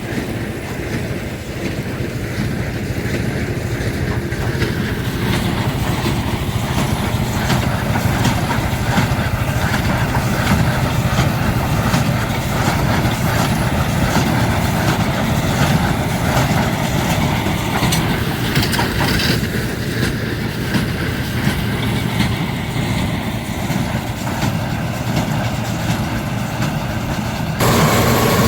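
John Deere 4055 tractor's diesel engine running steadily while the John Deere 338 small square baler works behind it, with a continuous mechanical clatter from the baler. Near the end the sound changes abruptly and gets louder.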